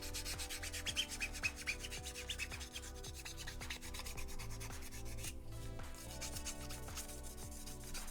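Fine-grit sanding stick rubbed back and forth in quick, repeated strokes along the edge of a plastic model piece, cleaning off moulding flash.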